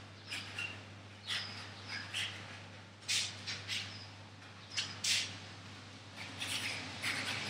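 Paintbrush strokes swishing across a large canvas: a string of short scrubbing brushes at irregular intervals, about one a second, with a few small squeaks. A steady low electrical hum runs underneath.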